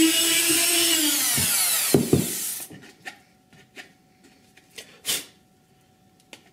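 Dremel rotary tool drilling a pin hole into a cast resin model part, then switched off about a second in, its whine falling in pitch as the motor spins down over about a second and a half. A few light knocks from handling the part and tool follow.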